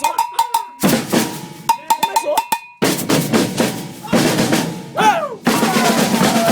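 Maracatu percussion ensemble playing: alfaia bass drums, snare drums and shakers. The sound jumps abruptly every second or so, as short clips are cut together.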